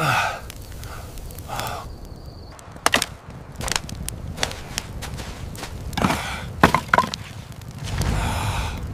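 Wood campfire crackling, with irregular sharp pops and snaps of burning sticks, the loudest few about six to seven seconds in, and a rushing swell near the end.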